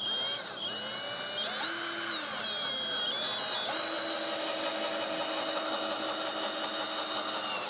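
DEKO 20 V cordless drill in first gear (slow, high torque) driving a Torx wood screw into a wooden beam: a steady motor and gearbox whine. Its pitch rises and falls back about two seconds in, then holds steady until the motor stops abruptly at the end. The screw goes fully in without the drill running short of power.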